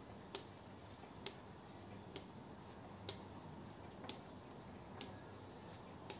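Seven light clicks about a second apart, slightly uneven in spacing: a modded spinning pen knocking against the fingers as it is popped up and caught again and again in a repeated pop spin.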